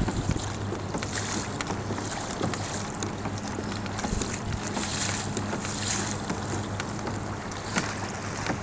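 Water splashing and lapping around a moving kayak, with wind rumbling on the phone's microphone and a faint low steady hum underneath.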